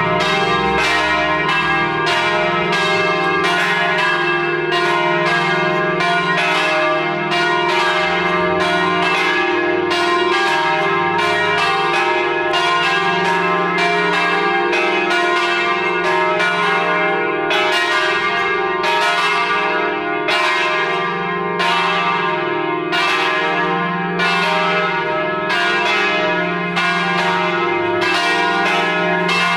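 Three large Paccard church bells (E-flat, F and G, cast 1958) swinging together in full peal, ringing for mass. Their strokes fall in an uneven, overlapping pattern, more than one a second, each hum ringing on under the next.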